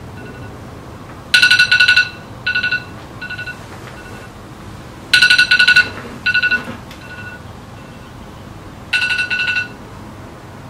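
Phone alarm going off: three bursts of rapid electronic beeps, about four seconds apart, each trailed by two or three fainter repeats that die away.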